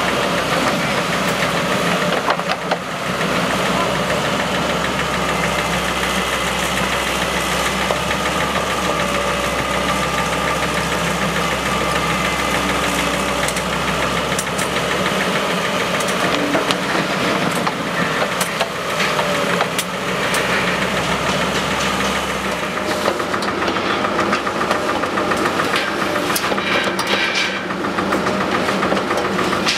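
Wacker Neuson 9503 wheeled excavator's diesel engine running steadily under working load, with scattered knocks and clanks as it digs. The low engine note changes about two-thirds of the way through.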